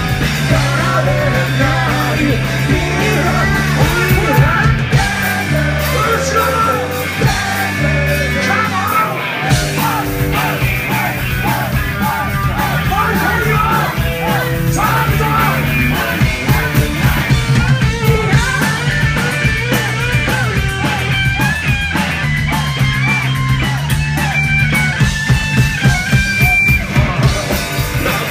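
Live punk rock band playing a song: electric guitar, bass and drums, with a woman singing and shouting into a microphone.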